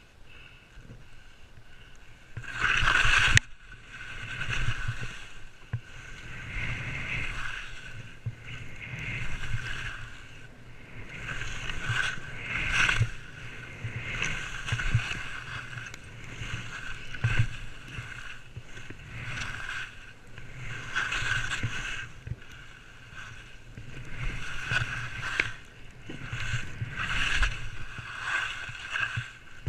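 Skis scraping and carving on packed snow, a swell of noise with each turn every second or two, with one louder scrape about three seconds in.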